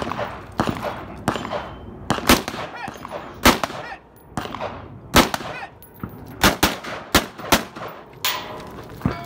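A string of about a dozen gunshots, unevenly spaced, from a competitor firing a multigun match stage.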